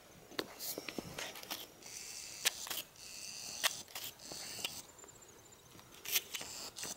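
Faint scattered clicks and rustling.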